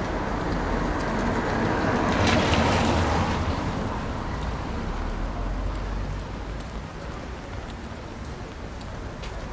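A vehicle passing on a wet street: its engine rumble and tyre noise swell to a peak about two and a half seconds in, then fade over the next few seconds, leaving a steady wash of rain and street noise.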